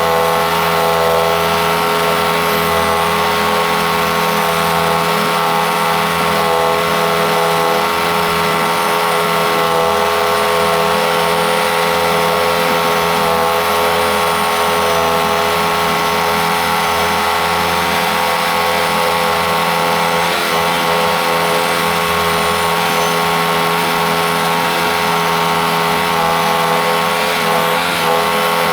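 Norwood MX34 portable bandsaw mill running at a steady speed as it saws the log: an even engine drone with several fixed tones that does not change.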